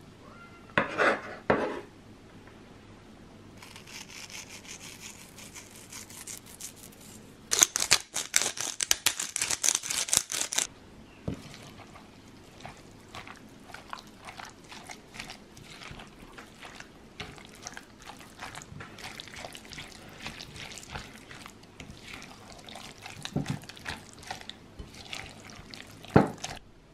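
A spatula stirring a thick, creamy mixture of cream cheese, yogurt, cooked lentils, diced red onion and cucumber in a glass bowl: irregular wet squelching with light taps against the glass. A brief louder scrape comes about a second in, and a louder, busier stretch of clatter and squelching from about eight to ten seconds in.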